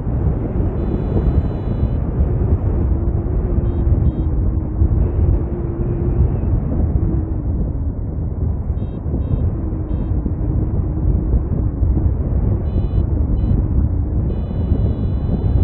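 Airflow rushing over the microphone in flight under a paraglider, with a variometer's short high beeps coming in several quick runs, the longest near the end. The beeping is the vario's climb tone, signalling that the glider is rising in lift.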